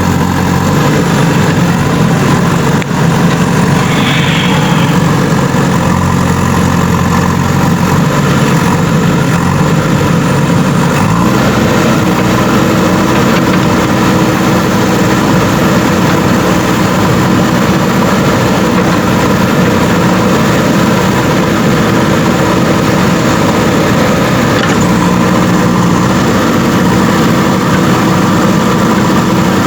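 JCB 3DX Super backhoe loader's diesel engine running steadily; about eleven seconds in the revs pick up, the pitch rising and then holding at the higher speed.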